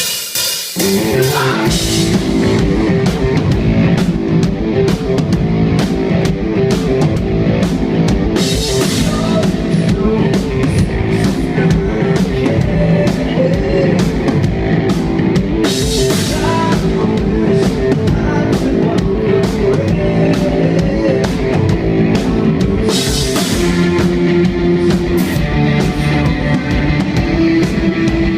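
Rock band playing full-out on drum kit and guitars, a sound-check run-through of a verse and part of a chorus. It starts abruptly on a steady driving beat, with cymbal crashes about every seven or eight seconds.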